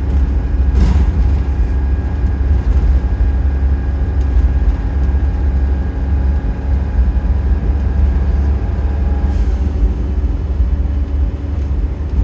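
Inside an Optare Solo SR single-deck bus under way: a steady, loud low rumble of engine and road noise with a faint steady whine above it. Two short hiss-like bursts come through, about a second in and again about nine seconds in.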